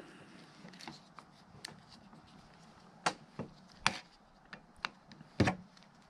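Scattered sharp clicks and clinks of a Torx driver and metal lock parts being handled while a T25 screw is taken out of a truck's door lock cylinder. Three louder ones come about three, four and five and a half seconds in.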